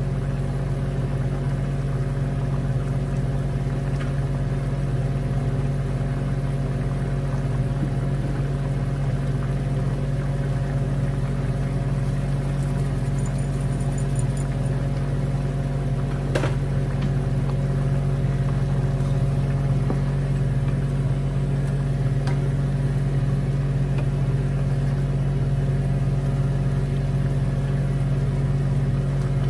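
A steady low hum from a small electric motor, even in level, with a single sharp click about halfway through.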